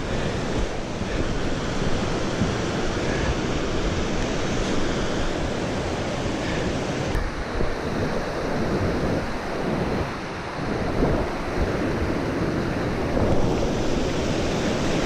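Fast river rapids rushing steadily over rocks at close range, with wind noise on the microphone.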